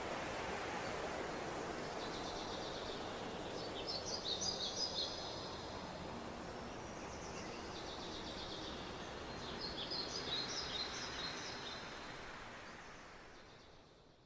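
Forest ambience: a steady background hiss with small birds chirping in two quick twittering bouts, one about four seconds in and another around ten seconds. The whole sound fades out near the end.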